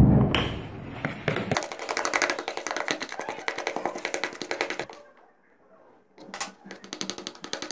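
Metal spoon beating egg and cornflour batter in a plastic bowl: fast, even clicking strokes against the bowl, stopping for about a second some five seconds in, then starting again. A thump opens the sound.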